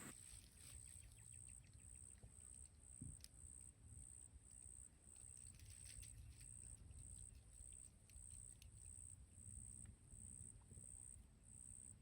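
Near silence: faint outdoor ambience with a high-pitched insect trill pulsing about twice a second, over a low rumble.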